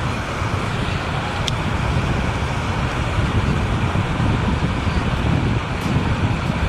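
Steady rushing noise of running water from a flowing drain, with one faint click about one and a half seconds in.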